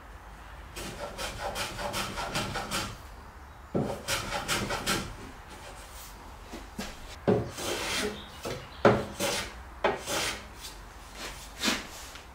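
A hand tool worked in short strokes along the edge of a wooden frame, rubbing and shaving the wood. It starts with two quick runs of strokes, then comes a handful of separate, sharper strokes in the second half.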